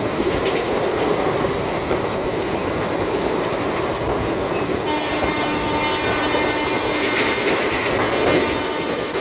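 Passenger train running at speed, heard from an open coach doorway: a steady rumble of wheels on rail with rushing air. About five seconds in, a train horn starts and is held to the end.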